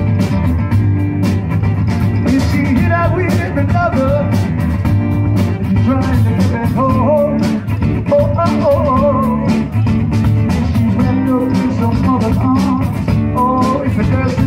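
Live band playing through PA speakers: drum kit keeping a steady beat under electric guitar, with a melodic line, perhaps a voice, weaving over it.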